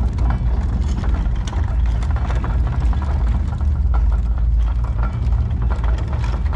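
Casters under a wooden crate cradle carrying an aluminium jet boat rolling over a driveway: a heavy steady rumble with scattered clicks and rattles.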